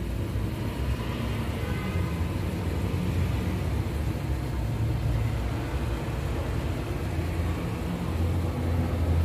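Steady low rumble from a steamer pot on a gas stove, the burner running under it.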